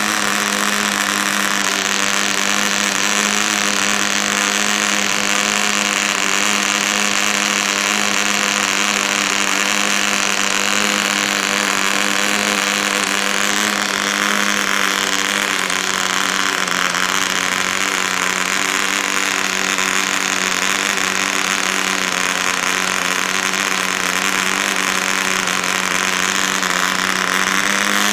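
PAW 55 model aircraft diesel engine, a tiny single-cylinder two-stroke, running steadily at high speed with its propeller turning: a loud, even, high-pitched buzz. It is being run in on its second tank of fuel.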